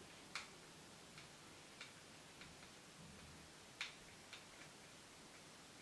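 Faint, irregular small clicks of a screwdriver turning a screw out of the plastic housing of an Air Wick air freshener's spray mechanism, the loudest click about four seconds in.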